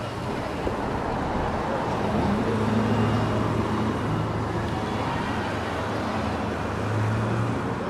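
Street traffic with a car engine humming as a Chevrolet Corvette sports car drives past. It is loudest about three seconds in, and another car's hum swells briefly near the end.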